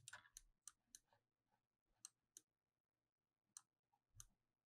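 About a dozen faint computer mouse and keyboard clicks, scattered irregularly, against near silence.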